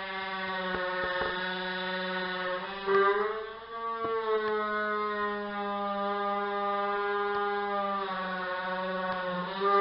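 Electric wood saw running with a steady high whine over a low hum. The pitch shifts and the sound surges louder briefly about three seconds in and again near the end.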